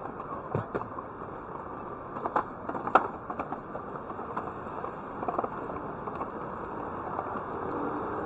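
City street ambience: a steady hum of traffic with scattered clacks and knocks, the sharpest about three seconds in.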